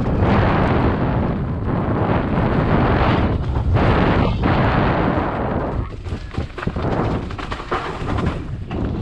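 Mountain bike riding fast down a leaf-covered dirt trail, heard from a helmet-mounted camera. Wind rushes over the microphone while the tyres crunch through leaves and the bike rattles and knocks over bumps. It is loudest for the first six seconds and eases somewhat after that.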